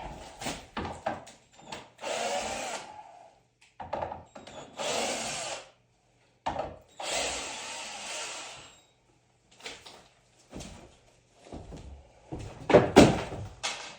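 A power drill runs in three short bursts of about a second each, among scattered knocks and clatter. A cluster of louder knocks comes near the end.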